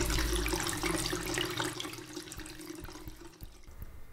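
Water running from a bathroom tap into the sink, dying away gradually over the first two seconds or so.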